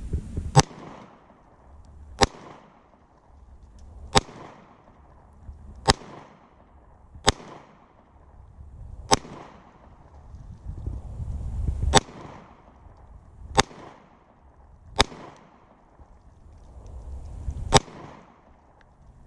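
Glock 43X 9mm pistol fired ten times in slow, single shots, one every one and a half to three seconds.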